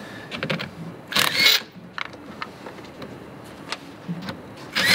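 Cordless drill/driver running in two short bursts, about a second in and again near the end, as it fastens a cable lead onto a boat battery terminal; small clicks and knocks of handling in between.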